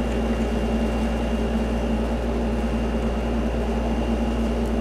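Steady low background hum with a faint, thin high tone above it, even in level throughout, with no distinct events.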